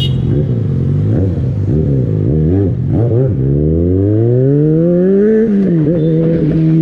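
Yamaha XJ6's 600 cc inline-four motorcycle engine heard from the rider's seat. It is blipped and feathered at low speed for the first few seconds, then accelerates with a long rising pitch that falls back about five and a half seconds in and then holds steady.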